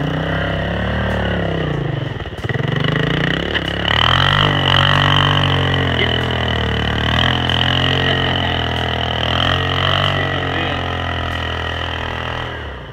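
1984 Honda ATC 200M three-wheeler's single-cylinder four-stroke engine running under a rider, its revs rising and falling, with a clear rev-up about four seconds in.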